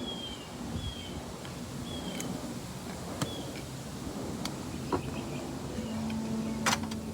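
A small bird repeats a short, high, falling chirp about once a second over steady outdoor background noise. A few sharp clicks and crackles come through, the loudest near the end.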